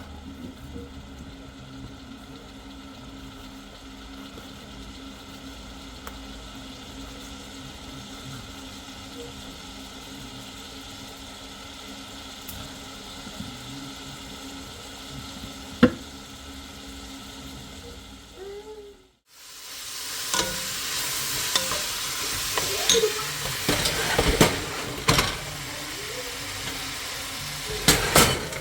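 Food frying and sizzling in a pan, with sharp clicks and scrapes of a utensil stirring it. The sizzle starts suddenly about two-thirds of the way in; before that there is only a steady low background with one click.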